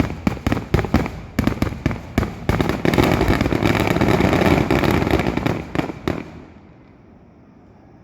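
Fireworks display: a quick run of sharp bangs builds into a dense, continuous barrage of explosions and crackling, which stops about six seconds in.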